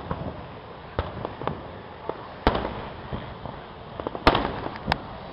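Aerial firework shells bursting in a display: four sharp bangs at irregular intervals, the loudest a little past four seconds in, with lighter crackling pops between them over steady background noise.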